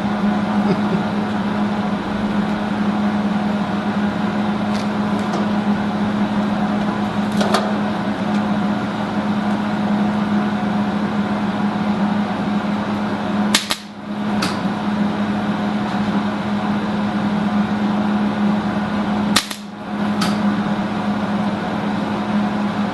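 Flux-core wire-feed welder humming steadily, with a few sharp clicks and two brief dips in the hum, about 14 and 20 seconds in. No arc takes hold, because the wire speed and voltage have not been turned up.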